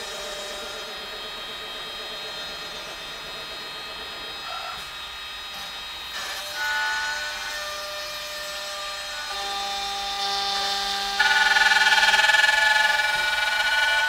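MSK2612 door lock-hole and hinge-slot drilling machine running, its electric spindle and drive motors giving a steady whine of several tones. The whine steps up in pitch and loudness partway through and is loudest over the last three seconds, where a hiss joins it.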